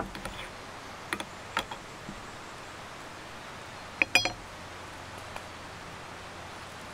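Camp cookware and utensils handled by hand: a few light clicks and clatters, then a short cluster of sharper metal clinks with a brief ring about four seconds in, over a steady background hiss.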